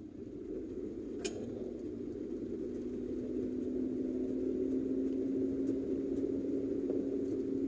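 Car running at road speed, heard from inside the cabin: a steady engine and road hum that grows a little louder, with a low drone settling in about three seconds in. A single sharp click about a second in.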